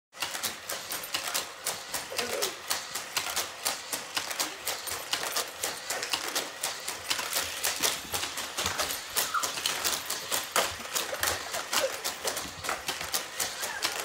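Hot Wheels toy cars clattering around a plastic loop track, a dense, irregular run of sharp clicks and rattles several times a second as the cars hit the track pieces and the dog pokes at them.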